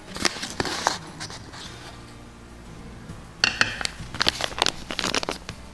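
A metal spoon clinking and tapping against the plastic food-processor bowl while baking powder is spooned in: a few light clicks near the start, then a quick run of sharp taps in the second half.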